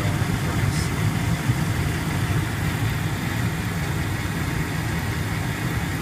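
Gas furnace running with its main burners lit from the relit pilot: a steady low rumble.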